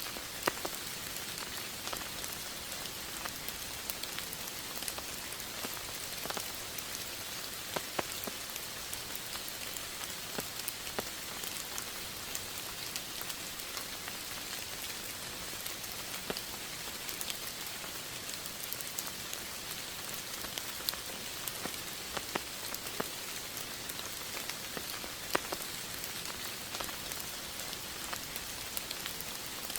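Steady rain: an even hiss with many separate drops ticking sharply now and then.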